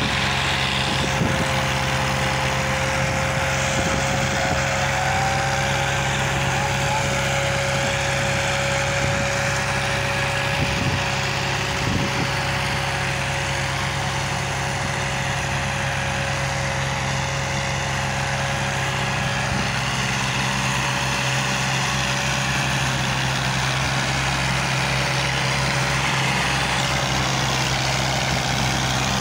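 Massey Ferguson 260 diesel tractor engine running hard at full power under a heavy load, with a second Massey Ferguson 240 tractor's diesel running alongside it, helping on a tow chain. A steady labouring drone with a steady high whine above it, which fades out a little past the middle.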